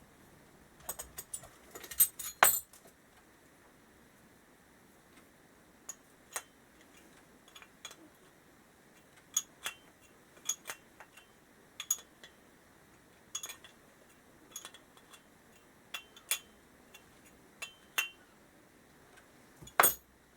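Small metal carburettor parts and hand tools clicking and clinking during hand reassembly of a Kawasaki KZ650 carburettor. A cluster of sharp clicks comes in the first few seconds, then single clicks about every second or so, with a louder one near the end.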